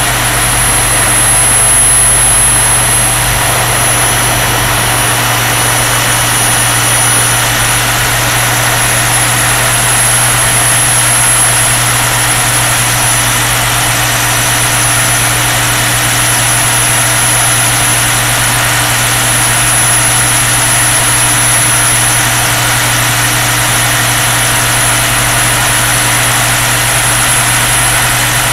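A 3.4 m radio-controlled EC135 model helicopter running and flying, heard from a camera mounted on its fuselage. It makes a steady, loud drone with a thin high whine over it.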